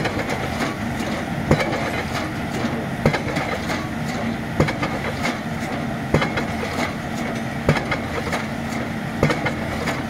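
9-ton single-acting hydraulic pile hammer striking the pile head, seven sharp blows about one and a half seconds apart, over the steady hum of the piling rig's engine.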